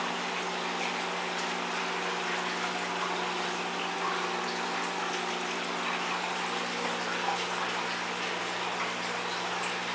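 Aquarium filtration running: a steady rush and trickle of moving water, with a low, steady pump hum underneath.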